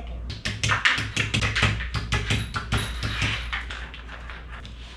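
Quick, irregular light clicks and taps of wooden dowels being handled and set into the holes of particleboard shelf panels, several a second, thinning out after about three and a half seconds.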